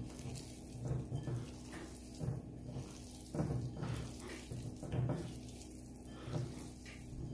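Wet handling sounds of hands rubbing and turning raw fish pieces in a spice marinade in a bowl, in irregular soft pulses about once a second.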